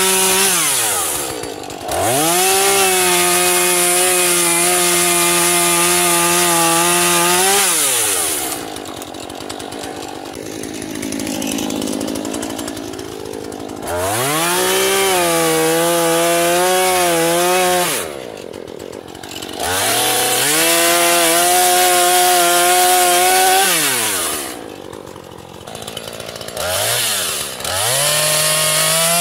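Husqvarna 440's two-stroke chainsaw engine running at full throttle as it cuts through a log. It drops back to idle between cuts and revs back up four times.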